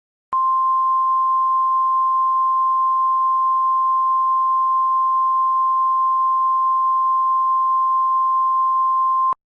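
Emergency Alert System attention tone: a single steady electronic beep at about 1 kHz, held for about nine seconds and cutting off sharply, the signal that an emergency alert message follows.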